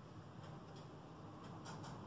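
Quiet room tone with a few faint, light clicks scattered through it.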